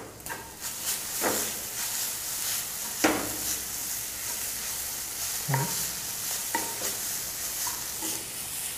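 Spatula stirring and scraping grated paneer and banana masala around a nonstick kadhai, over a steady sizzle of frying, with a few louder scrapes and knocks against the pan.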